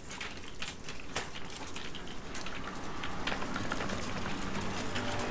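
Town street ambience: scattered light clicks and knocks over a low hum that slowly grows louder.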